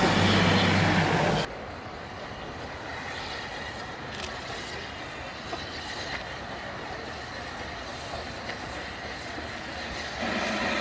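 A train of passenger coaches running along the track with a steady low rumble, cut off abruptly about a second and a half in. Then a quieter steady railway-station background with a few faint clicks follows, and a louder rumble with a low tone comes back shortly before the end.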